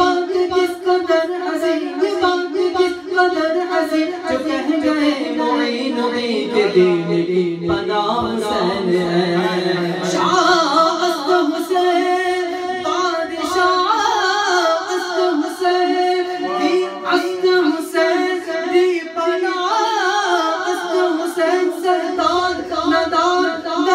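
A man singing an unaccompanied Urdu devotional song (manqabat) in long, winding melodic phrases, over a steady held drone note.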